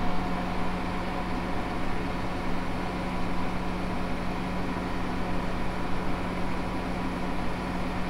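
John Deere tractor engine running steadily while parked, heard inside the cab as an even hum with a constant low tone.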